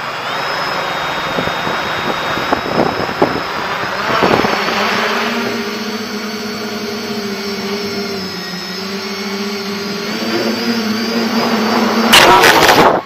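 Electric quadcopter's motors and propellers whining steadily, with wind rush, heard from the craft's onboard camera; from about four seconds in it settles into an even hum. Near the end, loud clattering bursts as the quadcopter crashes.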